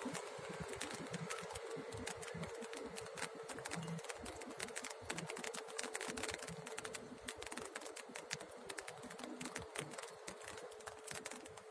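Raindrops ticking sharply and irregularly on an umbrella, many small hits a second, over a faint steady tone.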